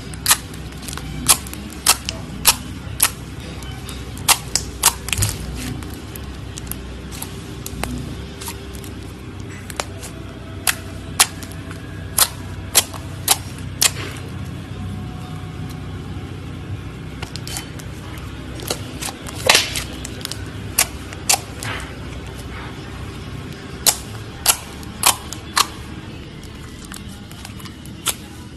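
Clear pearly slime being pressed and squeezed by fingers, trapped air popping out in sharp clicks and pops at irregular intervals, several in quick succession at a time.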